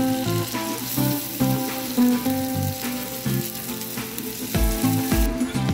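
Tofu sisig in butter sauce sizzling and bubbling on a hot oval sizzling plate, with a spatula stirring it near the end. Background music with a melody and a steady bass beat plays over it.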